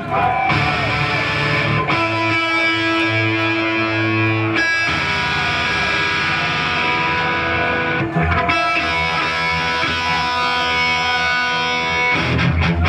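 Electric guitar through a distorted amp playing long held chords, changing every few seconds.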